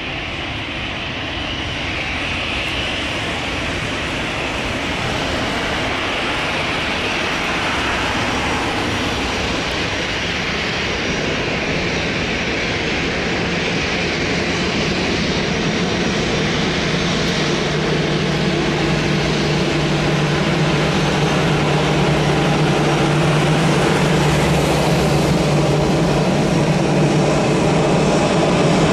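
Jet engines of a Boeing 737-800 airliner, CFM56 turbofans, rushing with a loud, dense roar that grows slowly louder, with a steady low hum coming up in the second half.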